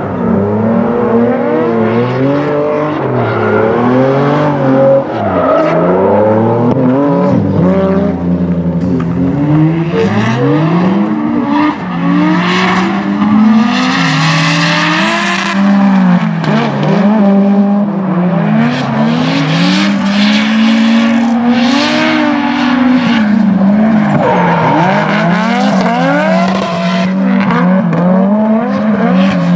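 Drift cars, a BMW E36 among them, at full throttle through slides, engines revving up and down over and over. Tyres squeal loudly at times, most strongly about twelve to sixteen seconds in and again around twenty seconds in.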